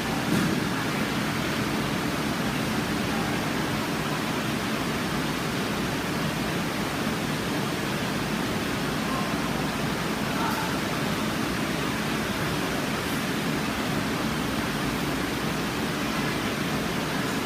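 Steady rushing noise with no distinct events, heaviest in the low-middle range.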